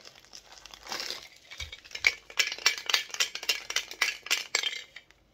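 A bagged vinyl figure rattling and clinking against the inside of an opened metal Funko Soda can as it is shaken out, with plastic crinkling: a quick, dense run of sharp clicks that stops shortly before the end.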